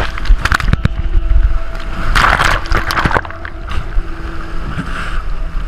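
A big ocean wave breaking over a rock ledge: loud rushing and splashing water, with a heavy surge about two seconds in.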